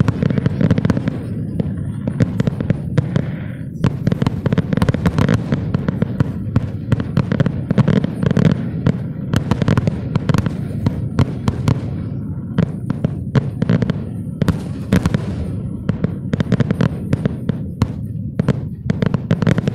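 Aerial fireworks shells bursting one after another, sharp bangs and rapid crackling over a continuous low rumble.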